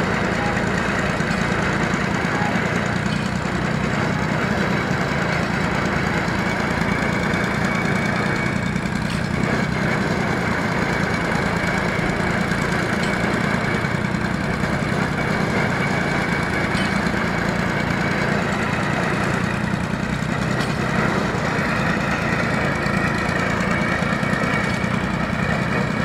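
Small stationary engine on a tripod piling rig running steadily at a constant speed, with no hammer blows standing out.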